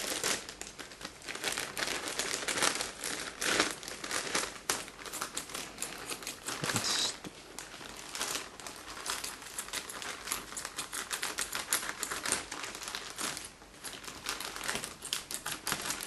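A FedEx courier bag crinkling and rustling in many short, irregular crackles as it is handled and cut open with scissors.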